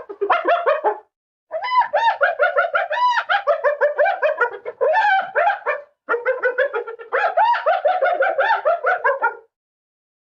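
Spotted hyena giggling: rapid runs of short, high, rising-and-falling whooping notes, several a second, in three bouts with brief gaps between them.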